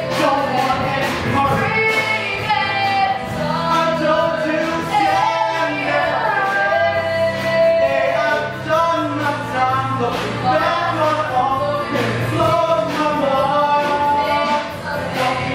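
A man and a woman singing in a live stage musical over instrumental accompaniment with low held bass notes.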